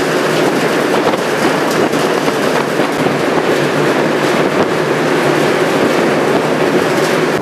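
Car ferry under way: a loud, steady rush of noise with no distinct tones.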